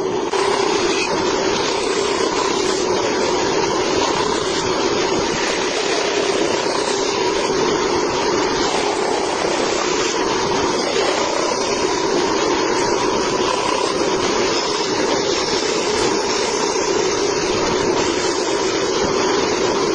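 Band saw running steadily as it cuts wood: a continuous, even mechanical whine and hum that holds at one level.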